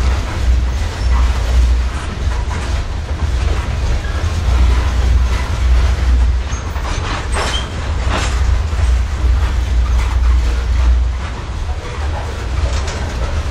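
Norfolk Southern freight train rolling past: a loud, steady low rumble of wheels on rail, with a few sharp clanks about seven to eight seconds in.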